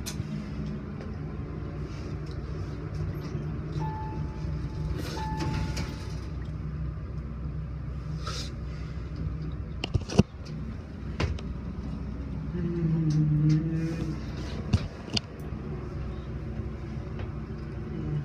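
Passenger lift car in motion, with a steady low rumble. Two short steady tones sound about four to six seconds in, and a few sharp clicks come between ten and fifteen seconds in.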